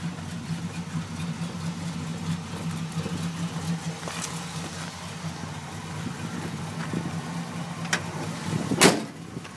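Stock 350 Chevy small-block V8 idling steadily through headers and turbo mufflers, with a low, not very loud exhaust note. A sharp click comes near 8 seconds, and a louder knock with a rustle follows about a second later.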